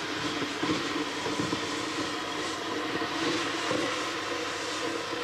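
Scrapyard ambience: a machine running steadily under scattered clanks and knocks of metal.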